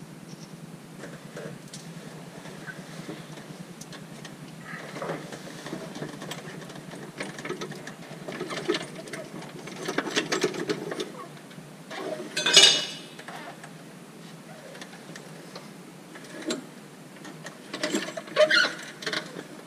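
Irregular metal clinks, knocks and scrapes as a backhoe's main hydraulic pump is worked loose and pulled out on a jack, with one louder scrape about twelve seconds in and a cluster of knocks near the end.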